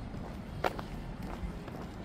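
Footsteps on a paved path, with a sharp click about two-thirds of a second in, over a steady low background hum.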